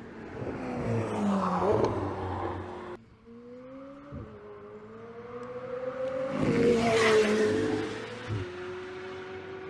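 McLaren 765LT's twin-turbo V8 at speed on track, its engine note swelling to a peak and falling away twice: once about two seconds in, ending abruptly, and again, louder, about seven seconds in.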